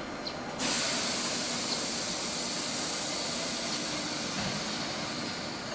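Compressed air hissing out from a stopped Tobu 100 series Spacia limited express train. The hiss starts suddenly about half a second in and slowly fades.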